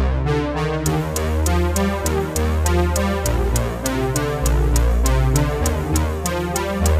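Electronic background music: synthesizer notes over a deep, sustained bass line, with a fast, even hi-hat tick coming in about a second in.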